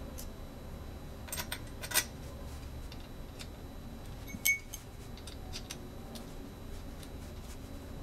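Light clicks and taps of metal Yagi antenna elements being handled and fitted into the aluminium boom of an Arrow II satellite antenna: a few clicks about a second and a half in, and a sharper tap with a brief metallic ring about four and a half seconds in.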